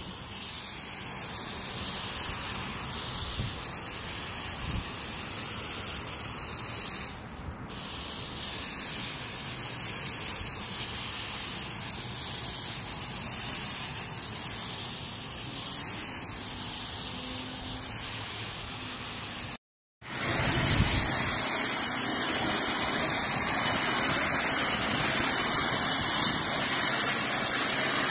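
Water spraying from a garden hose nozzle against a wooden fence, a steady hiss. After a short break about two-thirds of the way through, a louder, steady spray from a pressure-washer wand washing the fence with hot, low-pressure water.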